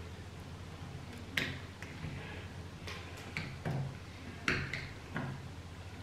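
Pliers working the copper conductor ends in a switch back box: a series of about seven short, sharp clicks at uneven intervals.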